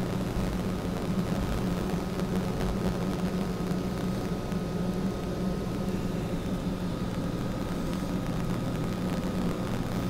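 Steady electrical hum and static from a faulty camera audio recording: an unbroken low drone with a thin high tone and hiss over it.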